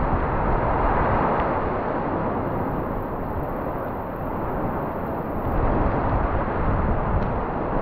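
Hurricane Ian's strong winds, sustained around 40 mph and gusting to about 60, blowing with heavy rain and buffeting the camera's microphone in a steady rushing rumble. The gust eases a little around the middle and builds again after about five and a half seconds.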